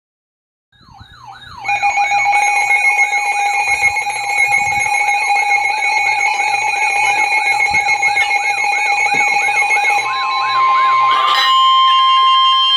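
Electronic emergency alert tones: a siren-like wail sweeping up and down two to three times a second over steady electronic tones. About ten seconds in, a steady tone near 1 kHz joins, and the sweeping stops shortly after.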